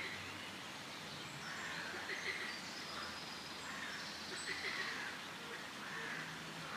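Forest ambience: a steady background hiss with scattered faint bird calls.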